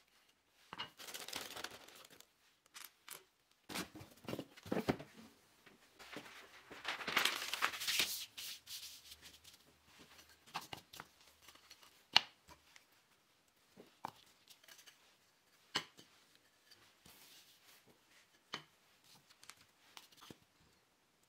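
Paper rustling and crinkling as a sheet of brown paper is handled and spread on a workbench, followed by a few single sharp taps as small wooden strips are set down on it.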